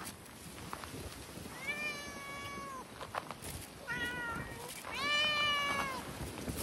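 Cat meowing three times: a long meow, a short one, then a long one that is the loudest.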